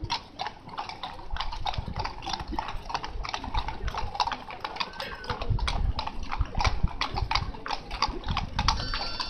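Hooves of several horses clopping on a wet paved road as they walk past: a steady, uneven run of hoof strikes overlapping from more than one horse.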